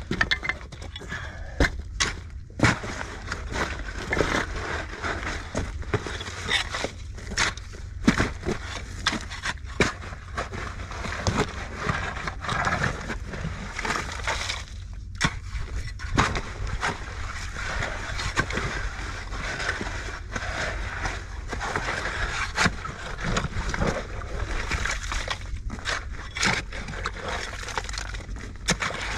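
A pickaxe and a steel digging fork work into rock and loose shingle, with repeated irregular clinks and knocks of metal on stone and the crunch and scrape of stones being levered loose.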